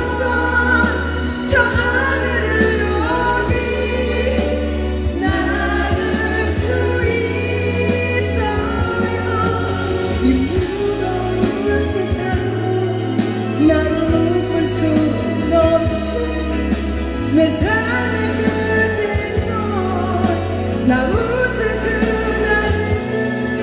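Live pop music: a woman singing over a full band with steady bass and drums.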